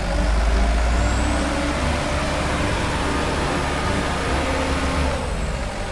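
Light-duty diesel dump truck's engine running steadily with a low rumble while its hydraulic hoist raises the tipper bed to dump soil.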